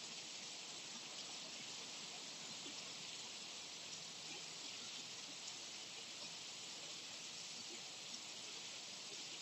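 Light rain, a drizzle, falling as a soft steady hiss with faint scattered drip ticks.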